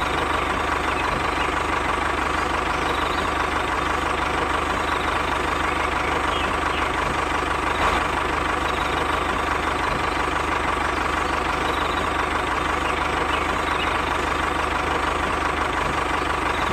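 Steady, even engine running sound, like a tractor engine, unchanging throughout and cut off abruptly at the end.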